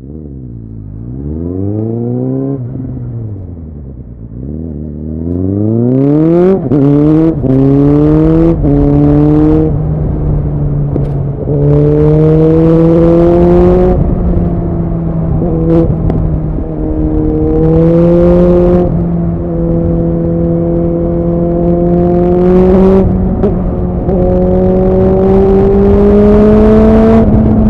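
Suzuki Bandit 650's inline-four engine breathing through a MIVV aftermarket exhaust: it revs up and falls back once, then pulls away, rising in pitch with a quick run of upshifts about six to ten seconds in. After that it settles into a steady cruise, with small throttle rises and dips and a few further gear changes.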